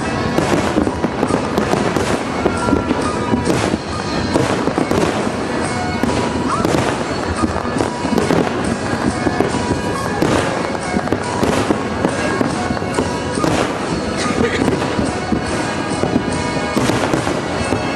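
Aerial firework shells bursting in a dense, continuous barrage of bangs and crackles, with no let-up.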